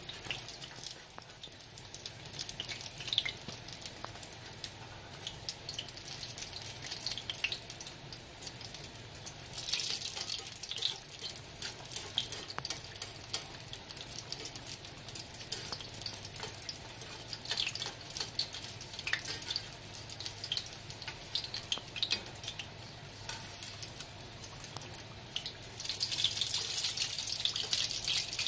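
Hot oil sizzling and crackling around two chimichangas frying in a cast iron skillet, getting louder for a moment about ten seconds in and again near the end.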